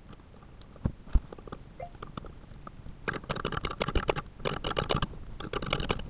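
Wrench working the nut on a toilet tank bolt: a couple of single knocks about a second in, then two runs of rapid metallic clicking from about halfway through.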